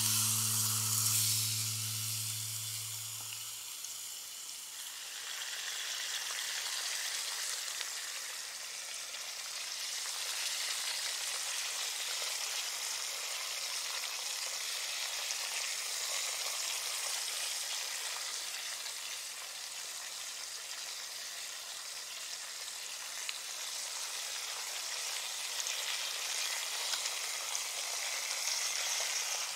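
Beef steak and potatoes sizzling steadily in hot fat in a frying pan over campfire embers. Background music fades out over the first few seconds.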